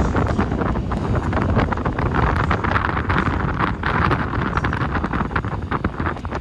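Strong wind buffeting the microphone: a steady low rumble broken by frequent short crackling gusts.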